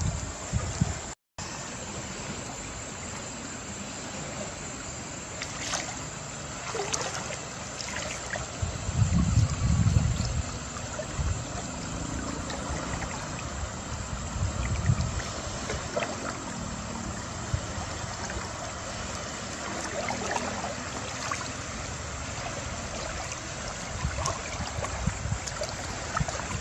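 River water flowing and splashing around people wading in it, a steady rushing hiss, with a few low rumbles, the strongest about ten seconds in. The sound cuts out for a moment about a second in.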